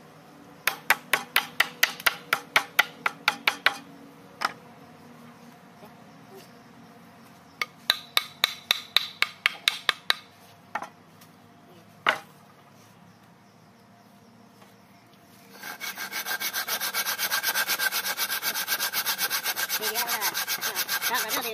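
Hand saw cutting a wooden plank: two short runs of quick strokes, a few single knocks, then several seconds of steady, rapid sawing near the end, the loudest part.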